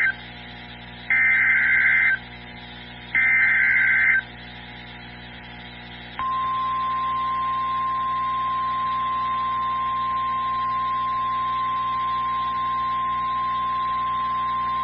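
Emergency Alert System SAME header: short bursts of two-tone data warble about a second each, repeated, then the 1050 Hz NOAA Weather Radio warning alarm tone held steady for about nine seconds. Together they announce a tornado warning about to be read.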